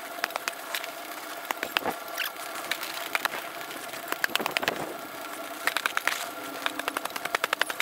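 Snow shovel scooping and scraping crusty snow, with irregular crunches, then quick runs of taps as the blade packs the snow down into a hole of exposed earth.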